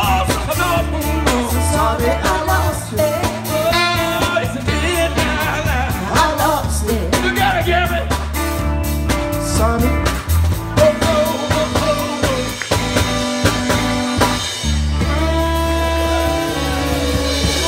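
A live soul band playing: singers over a drum kit and a steady bass line, with a long held note about three seconds from the end.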